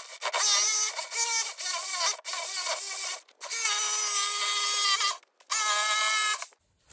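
Corded electric power saw cutting a sheet of 3/4-inch pressure-treated plywood: a steady motor whine that shifts in pitch under load and stops and restarts several times, then cuts off near the end.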